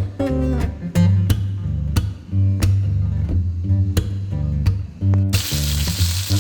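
Background music with plucked guitar and a steady bass line. About five seconds in, the sizzle of food frying in oil in a pan cuts in abruptly, with the music still playing underneath.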